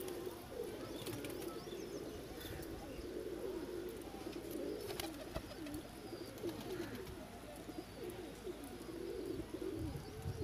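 A flock of domestic pigeons cooing, many low coos overlapping into a continuous chorus.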